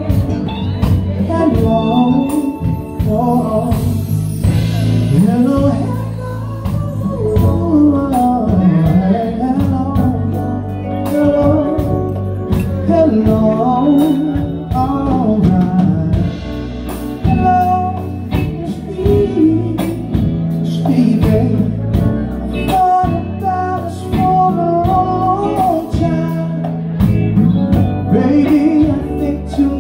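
Live band playing with a male lead singer: sung melody over electric guitar, keyboard and drums keeping a steady beat.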